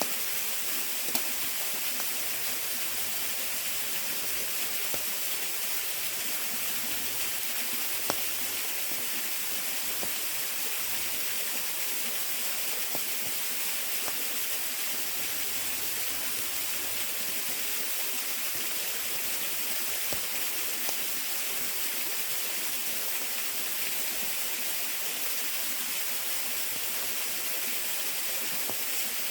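Waterfall rushing in a steady, unbroken hiss of falling water, with a few short sharp pops over it.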